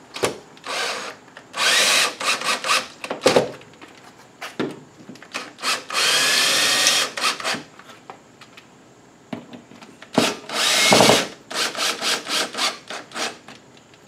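DeWalt cordless drill/driver driving screws into molly anchors in drywall. It runs in three main bursts of about a second, with many short trigger pulses between them, and the motor pitch rises during the longest run. Each screw is only snugged up, not driven hard, so the molly does not strip out.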